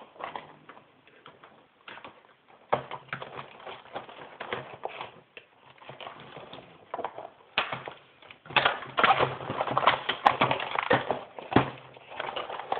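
Cardboard box and plastic packaging being handled: irregular rustling, scraping and clicking as a plastic toy bow is worked out of its box. The handling is sparse at first and gets busier and louder from about two thirds of the way in.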